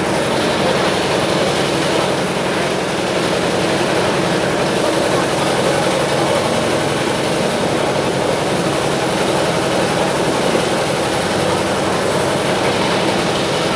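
Steady mechanical drone, like a motor running, with a faint low hum.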